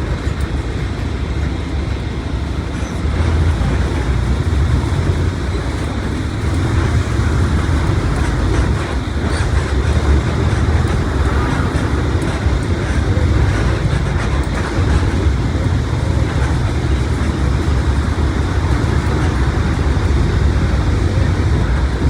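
Mercedes-Benz OF1721 BlueTec 5 bus diesel engine running under way, a steady deep rumble mixed with road and drivetrain noise; it gets louder about three seconds in and then holds.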